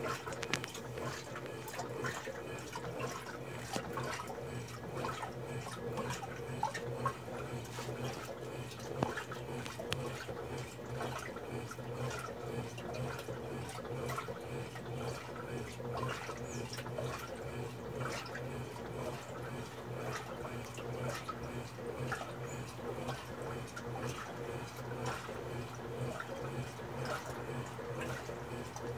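Electrolux top-loading washing machine in its turbo wash, motor humming steadily while water splashes and churns in the drum with the jeans.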